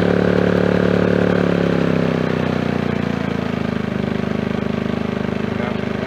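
Champion 2000 watt inverter generator's small single-cylinder four-stroke engine running. About two seconds in its speed drops smoothly over a second or so, then it settles into a steady, slightly quieter run at the lower speed.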